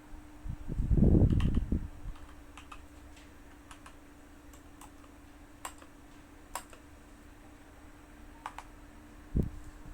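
Keychron K2 mechanical keyboard with Gateron Brown switches being typed on: scattered single keystrokes clicking. A louder, deeper thumping flurry comes about a second in and another near the end.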